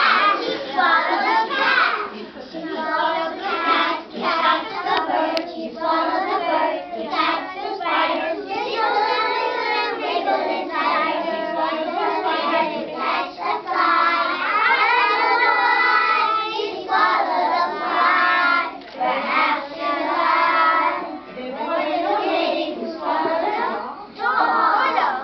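A group of young children singing a song together, in phrases with brief pauses between them.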